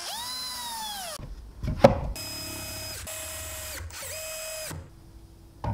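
Ryobi cordless drill-driver driving M4 bolts in short runs: a first whine that drops in pitch as it slows, a sharp click, then two steady runs of the motor, the second shorter, stopping about a second before the end.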